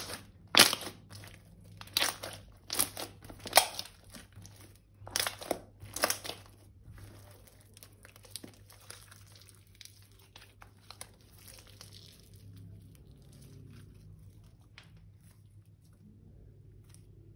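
Thin plastic crinkling and crackling as it is handled, with a run of loud, sharp crackles in the first six seconds, then fainter crinkling that dies away about two-thirds of the way through.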